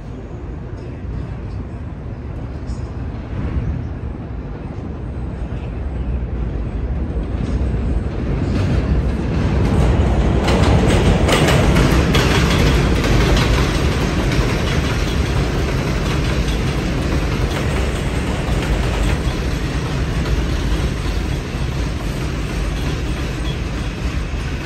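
New York City Subway 4 train running on the rails; its noise grows louder from about eight seconds in and then holds steady.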